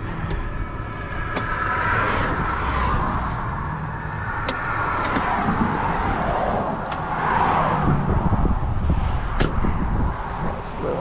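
Roadside traffic noise: vehicles passing on the highway alongside in several slow swells, with a few sharp clicks and knocks as the pickup's door is opened.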